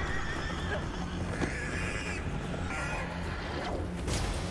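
TV drama soundtrack playing: a steady rushing, rumbling sound-effects bed with no clear dialogue.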